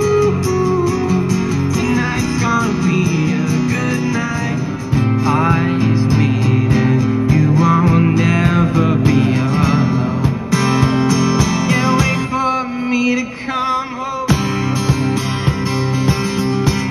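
Acoustic guitar strummed with a man singing along, picked up through a microphone and small amplifier.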